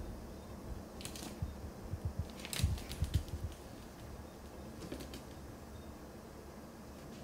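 A Chihuahua's claws clicking and paws patting on a wooden floor as it scampers in play, in scattered light taps and soft thumps that come thickest between about two and three and a half seconds in.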